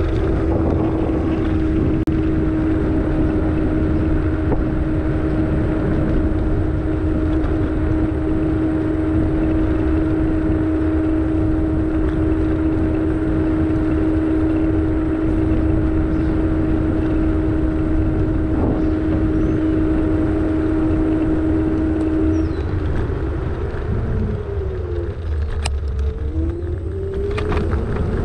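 Vehicle travelling along a street at steady speed, with road and wind rumble and a steady whine. Near the end the whine drops in pitch and climbs again as the vehicle slows and then picks up speed.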